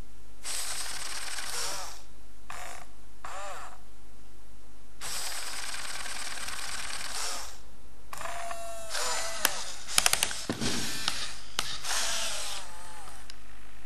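i-Cybie robot dog's leg servo motors and gears whirring in separate bursts of up to about two seconds as it moves its legs and pushes itself up. A quick run of sharp clicks comes about nine and a half to ten seconds in.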